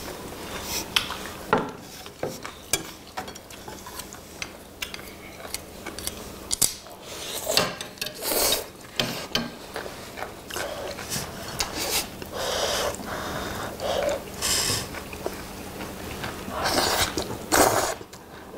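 Eating sounds: jjapagetti black-bean noodles slurped and chewed, with chopsticks and metal tongs clicking against ceramic bowls and a plate. Sharp clicks throughout, with several longer slurps in the middle and near the end.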